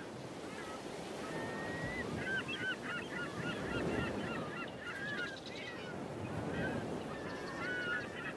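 A flock of birds calling: many short, overlapping honking calls from about two seconds in, over a steady low rushing background.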